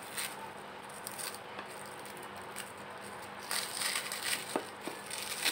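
Clear plastic cling film crinkling and rustling as it is peeled off the tops of plastic ice cream cups. It is faint at first and grows into louder crackly rustling about three and a half seconds in, with a few light ticks.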